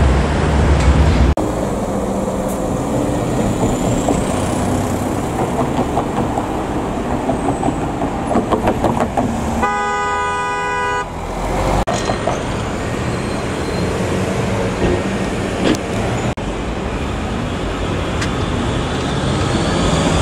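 Steady city street traffic, with a vehicle horn sounding once, held for about a second, halfway through. Near the end a tram rolls in close by, growing louder.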